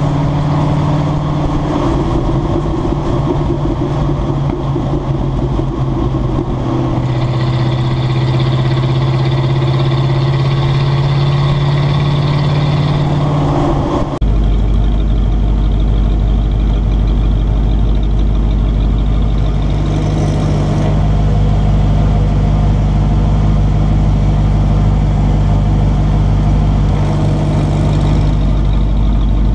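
1995 Ford F150's 302 V8 running through its exhaust, heard close to the pipes: a steady engine hum while the truck drives. The sound cuts abruptly to a deeper, steady idle rumble. Twice during the idle, a brief high whir of about a second lines up with the electric exhaust cutout being worked by its remote.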